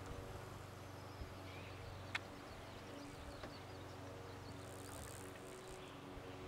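Faint, steady hum of an idling vehicle engine, with one sharp click about two seconds in and a few faint high chirps of birds or insects.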